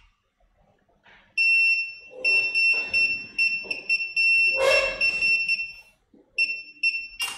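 Mastech benchtop digital multimeter's buzzer beeping in diode-test mode: one steady high tone that sounds in broken stretches, cutting in and out as the probe tip makes and loses contact with the laptop board's connector pins. Short scratchy noises come between the beeps, and there is a sharp click near the end.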